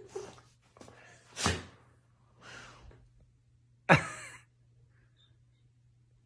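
Four or five short breathy huffs, the loudest and sharpest about four seconds in.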